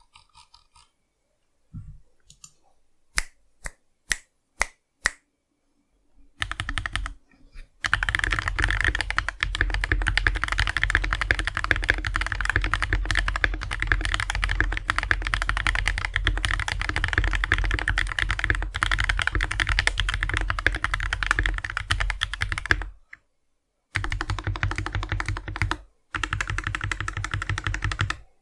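Custom mechanical keyboard with lubed, filmed switches and an EVA-foam-dampened case being typed on. A few single keystrokes come about three to five seconds in, then fast continuous typing starts at about six seconds, broken by two short pauses near the end.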